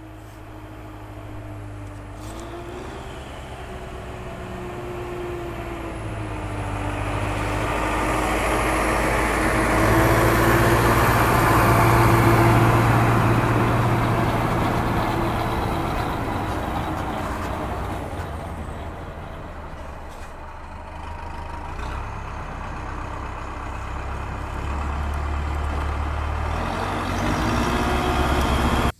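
A motor vehicle engine running with a low rumble and a wavering hum, growing louder to a peak about ten to thirteen seconds in, easing off, then rising again near the end.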